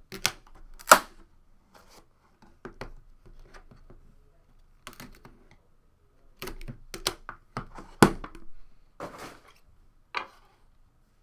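Cardboard trading-card box and packaging being opened and handled by hand: scattered sharp taps and knocks on the table, with the loudest about a second in and another about eight seconds in, between short scraping and rustling sounds.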